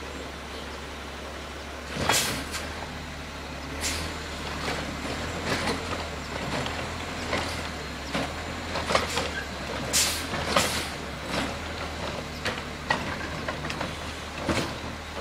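Automated side-loader garbage truck running steadily with a low diesel hum while its arm lifts and empties a yard-waste cart into the hopper. Irregular knocks and short sharp bursts of noise come as the cart and arm work.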